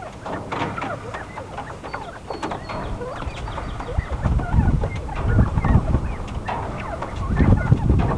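Quail giving short chirps and soft clucking calls while dust bathing in a tub of sand, with scratchy rustling as they work the sand. Low thumps come in from about halfway and are the loudest part.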